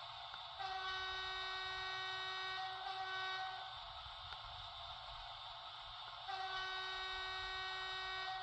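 Sound decoder of an Electrotren Renfe 470 model train sounding its horn through the model's small speaker: two long blasts, the first starting just under a second in, the second about six seconds in, each lasting around three seconds, over a steady hiss.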